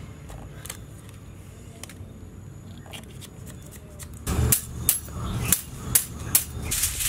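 A wire grilling basket being handled: after a quiet stretch, sharp metal clicks and clanks come about every half second, then turn into a dense rattle near the end.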